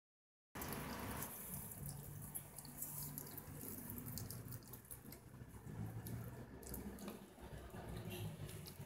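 Serval kitten eating raw chicken neck: wet smacking and chewing with many irregular clicks as it works the meat and bone.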